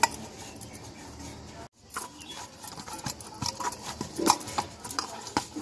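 Hands kneading gram-flour dough in a steel bowl: irregular soft slaps and squishes with scattered clicks and knocks, busier in the second half. The sound drops out briefly near two seconds in.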